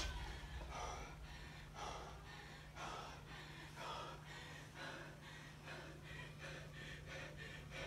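A man breathing hard, gasping about once a second, winded while resting between heavy deadlift reps. A steady low hum runs underneath.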